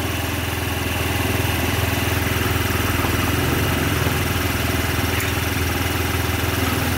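Fuel-injected motorcycle engine idling steadily at an abnormally high idle speed. This engine has no idle adjustment screw, so the fault is set right at its idle air control valve (IACV).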